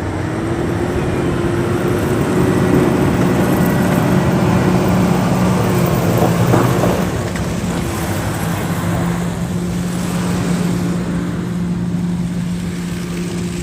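Motor vehicle engine running steadily: a low, even hum over a wash of road noise.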